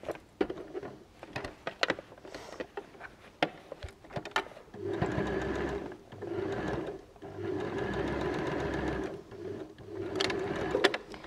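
Janome domestic sewing machine top-stitching a seam through layered fabric: after a few seconds of light clicks, it runs in three stretches of about two seconds each, stopping briefly between them.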